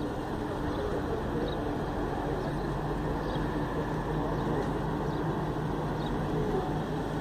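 A vehicle engine running at a steady low hum, over open-air background noise.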